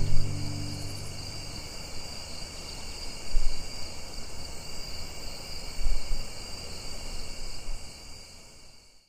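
Night insects, crickets, chirring steadily in several high bands as the last acoustic guitar chord rings out in the first second. Two low thumps come about three and a half and six seconds in, and everything fades out near the end.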